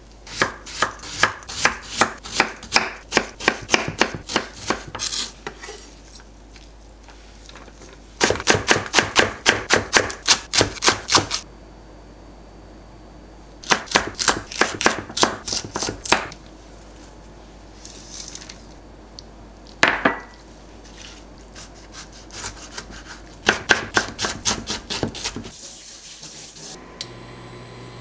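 Chef's knife chopping on an end-grain wooden cutting board, slicing a peeled cucumber and green chili peppers: several runs of quick, evenly spaced knocks, a few per second, with pauses between runs. A faint steady hum starts near the end.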